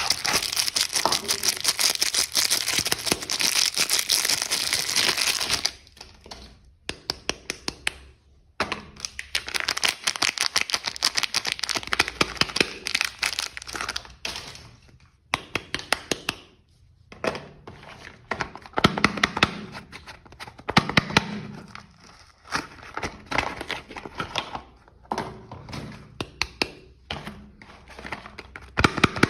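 Soap packaging crinkling and tearing as it is unwrapped by hand: two long stretches of dense crackling, then shorter bursts of crinkles and clicks with brief pauses between them.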